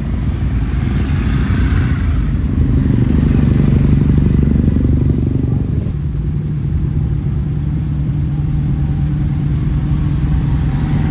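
Kawasaki W-series air-cooled parallel-twin motorcycle engine and exhaust running. It swells in level a few seconds in, eases off around six seconds, then holds a steady, even note.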